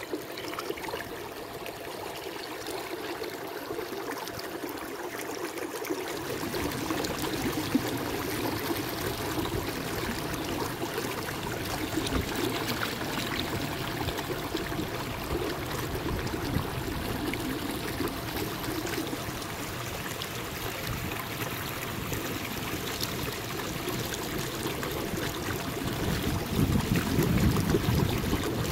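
Water trickling and lapping along a kayak's hull as it moves over the river: a steady rushing wash that grows fuller after about six seconds and louder near the end.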